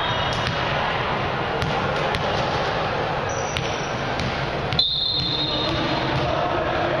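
Sports-hall ambience during a volleyball match: crowd chatter with a few scattered thumps of a ball on the hardwood floor and short high sneaker squeaks. A sharp knock about five seconds in is followed by a brief high tone lasting about a second.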